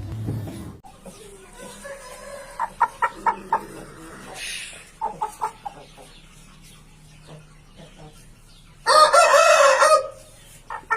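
Aseel rooster clucking in two short runs, then crowing once near the end; the crow lasts about a second and is the loudest sound.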